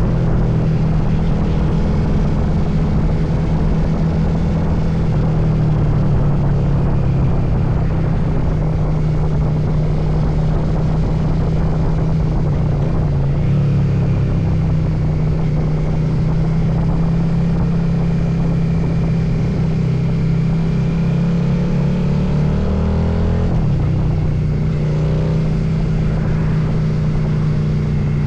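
Motorcycle engine running at a steady road speed, with wind rushing over the action camera's microphone; the engine note shifts briefly about halfway through and again near the end.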